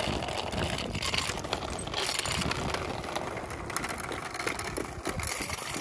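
Small wheels rolling over rough asphalt: a continuous gritty rolling noise full of small clicks and rattles.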